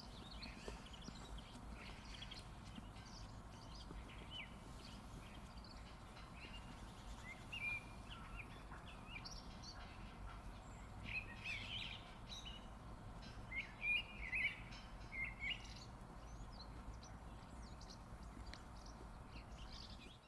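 Small birds chirping in short, scattered calls over a faint, steady low background rumble. The chirps are loudest and most frequent around the middle, with a few sharper peaks.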